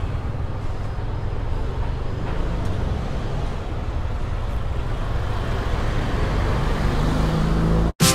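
Road traffic: a steady low rumble of passing vehicles, with an engine note rising near the end. It cuts off abruptly just before the end, where music begins.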